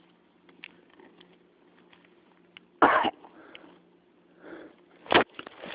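A person coughing: one short loud cough about three seconds in and another just after five seconds, over a faint low hum with scattered small clicks.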